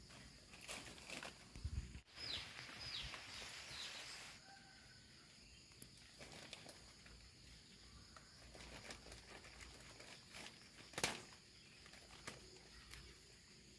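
Quiet rural outdoor ambience: a steady high-pitched hum, a few short falling bird chirps about two to four seconds in, and a single sharp click about eleven seconds in.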